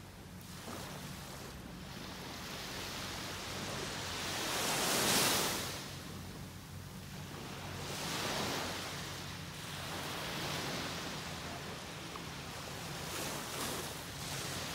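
Small waves breaking and washing up on a sandy beach, the surf swelling and fading every two to three seconds, loudest about five seconds in.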